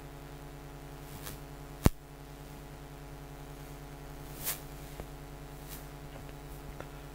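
Steady electrical hum of room tone, with a single sharp click about two seconds in, a softer knock or rustle around four and a half seconds, and a few faint ticks.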